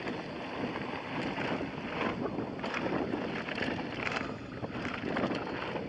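Mountain bike descending a dirt trail at speed: wind rushing over the camera microphone, with tyres rolling on dirt and the bike clattering over bumps in frequent short knocks.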